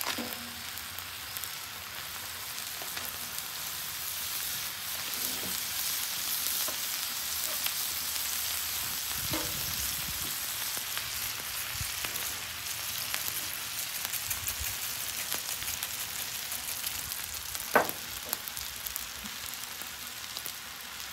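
Butter and avocado oil sizzling on a hot flat-top griddle, a steady hiss. A single short knock comes near the end.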